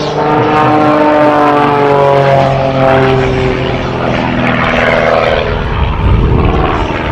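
Aerobatic biplane's propeller engine running loud, its note falling slowly in pitch over several seconds as it flies past, with a low rumble near the end.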